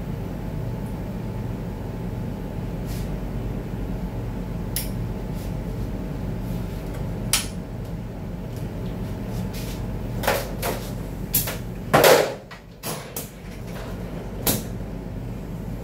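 Steady low hum of workshop machinery under scattered light clicks and knocks of metal transmission parts and tools being handled. The clicks come closer together near the end, around one short, loud burst of noise about twelve seconds in.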